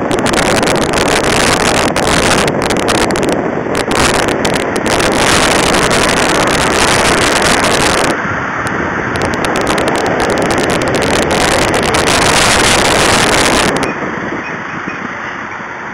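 Car driving in traffic, with loud rushing road and wind noise buffeting the microphone; it turns quieter about two seconds before the end.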